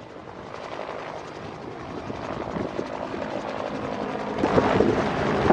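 Westland Whirlwind helicopter flying past, its rotor and engine sound growing steadily louder, strongest near the end.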